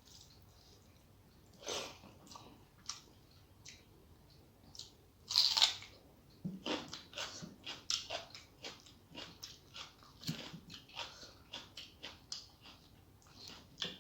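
Close-miked chewing and mouth sounds of a person eating a rice meal: short wet clicks and smacks that come thick and fast in the second half, with one louder crunch about five and a half seconds in.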